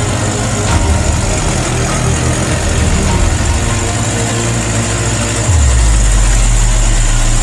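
Truck engine sound running steadily at a low idle-like drone, as played or dubbed for RC model trucks. About three quarters of the way through a deeper, louder drone sets in, as if under load while towing.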